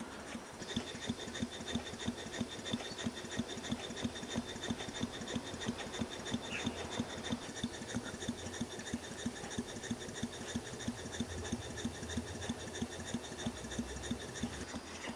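Stuart No. 8 horizontal model steam engine running on compressed air, ticking over almost silently: a faint, even chuff of exhausting air at about five a second.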